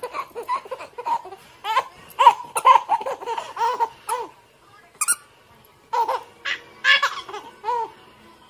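Baby laughing in quick, high-pitched giggles, one bout through the first half and a second near the end, with a brief click in the pause between them.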